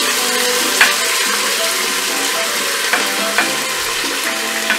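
Chopped onions sizzling in hot oil in a pot, stirred with a wooden spatula that scrapes and knocks against the pan a few times.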